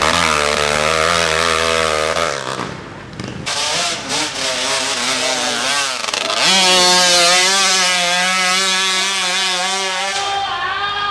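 Trail motorcycle engines revving hard as dirt bikes claw up a steep dirt hill climb, the pitch rising and falling with the throttle. The engine note changes abruptly twice, then holds a steady high rev for a few seconds before climbing again near the end.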